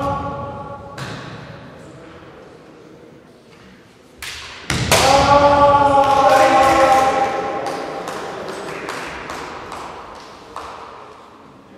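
Kendo kiai: about four and a half seconds in, a sharp shinai strike and stamp on the wooden floor, then a long drawn-out shout held on one pitch that fades into the hall's echo, the sound of a scoring attack. It opens on the fading tail of an earlier held shout, and a light knock comes near the end.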